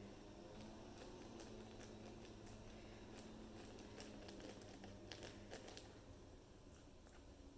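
Faint scattered licking clicks and soft plastic crinkling from a standard poodle working at a paint-filled canvas sealed in a plastic bag, over a low steady hum; the clicks come thickest in the middle.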